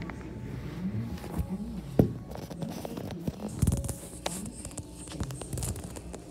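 Rubbing, scraping and clicking handling noise from a phone being moved around in the hand, with a sharp knock about two seconds in.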